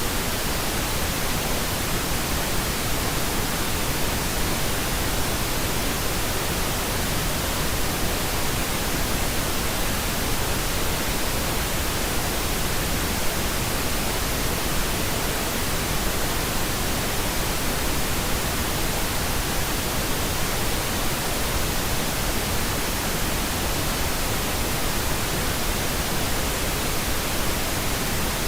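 Steady white noise: an even, unchanging hiss spread across all pitches from low to high, with no rises, falls or breaks.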